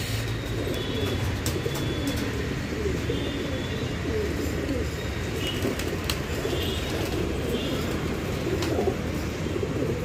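A flock of domestic pigeons cooing together: many low, rolling coos overlapping without a break.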